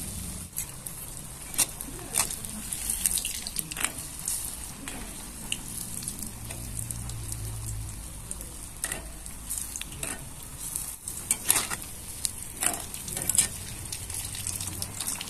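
Wheat-flour and semolina batter deep-frying in hot mustard oil in an iron kadai, sizzling steadily, with scattered sharp clicks and scrapes as a steel ladle works in the pan.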